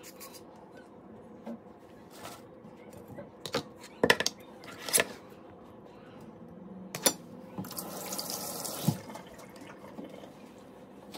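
Kitchen knife cutting slices from an unripe green mango, with slices and blade knocking on a ceramic plate: scattered sharp clicks and taps, loudest about four and five seconds in. Past the middle, a rushing hiss lasts about a second.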